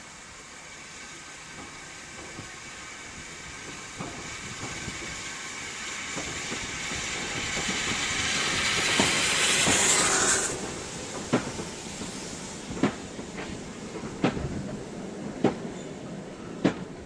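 Steam tank locomotive approaching and passing beneath, its steam hiss building to a peak about ten seconds in and then cutting off. Its coaches follow, their wheels clicking over the track joints about every second and a half.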